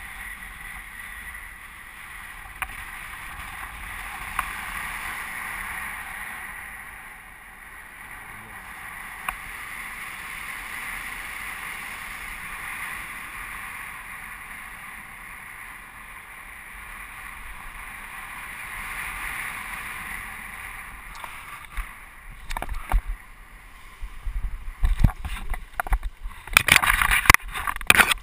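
Steady rush of air over a paraglider's onboard camera microphone during the descent, swelling and easing slowly, with a few small clicks. In the last several seconds, as the glider comes in low over the landing field, loud irregular buffeting and bumps take over.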